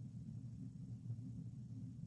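Low, steady room hum with no distinct events: quiet background noise.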